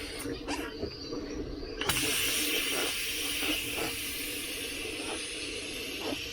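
Air hissing steadily at the Veteran Sherman electric unicycle's tyre valve, starting suddenly about two seconds in after a few light taps. It is air being let out of or pumped into the tyre while its bead is seated evenly.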